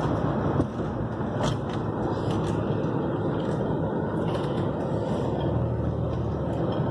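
Steady road and engine noise of a car driving on the freeway, heard from inside the cabin. A few faint clicks come through about a second and a half and two seconds in.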